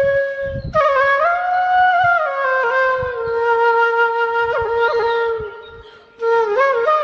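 A trumpet playing a melody of long held notes that slide from one pitch to the next, over faint drum beats. The tune fades out about five and a half seconds in and comes back strongly just before the end.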